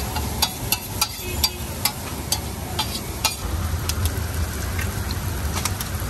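Metal spatula striking a large flat griddle (tawa) while egg bhurji masala is chopped and stirred, about two sharp clanks a second, over the frying underneath. After about three and a half seconds the clanks give way to a steady low rumble with a couple of light taps near the end.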